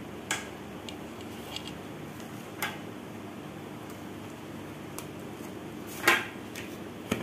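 A few light clicks and knocks as a cake on a plate is handled and the baking paper is peeled from its side, the loudest about six seconds in, over a faint steady hum.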